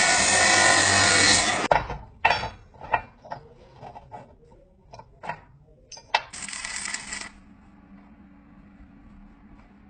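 A power tool runs loudly and cuts off abruptly about two seconds in, followed by a string of light metallic clinks and taps, a second short burst of power-tool noise about six seconds in, and then a faint steady hum.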